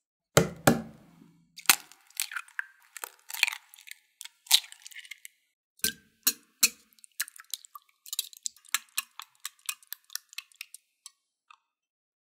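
Eggs knocked against a hard surface and broken open into a glass measuring cup, with shell cracking and splatting; then a small wire whisk beating the eggs in the glass cup, ticking quickly against its sides. The loudest sounds are the two sharp knocks about half a second in.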